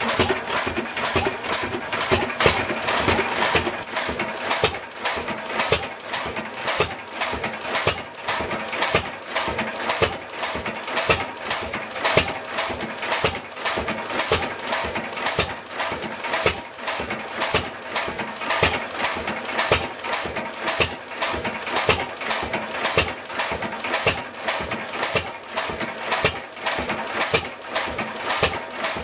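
7hp Waterloo Boy Type K hit-and-miss stationary engine running steadily, its valve gear and crank clattering in an even run of clicks about three a second.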